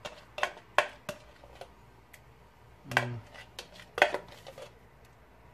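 Metal spoon scraping and tapping inside a mayonnaise jar to get out the last of it: a scatter of short, irregular clicks and knocks.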